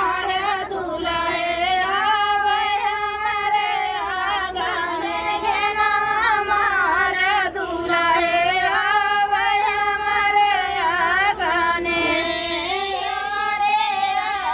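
A woman's high-pitched singing voice, a song with long held notes that bend up and down.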